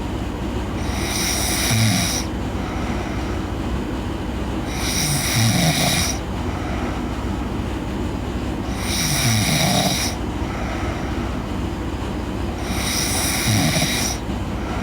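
A sleeping girl snoring with slow, even breathing: about four snores, one roughly every four seconds, each a hissing breath with a short low rattling tone near its end.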